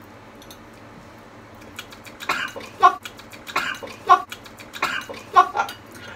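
A person's short, breathy vocal bursts, about six of them coming in pairs, starting about two seconds in after a stretch of faint room hiss.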